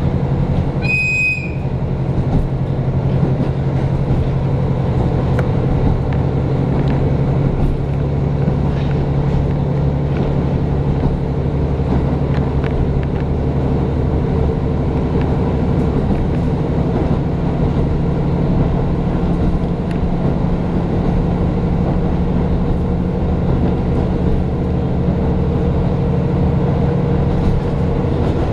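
Diesel railcar running at speed, heard from inside the passenger cabin: a steady engine drone with wheel-on-rail rumble. A short high-pitched beep sounds about a second in.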